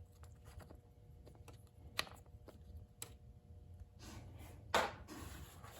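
Quiet handling noise with a few light clicks, the loudest near the end, as the engine's oil filler cap is taken off.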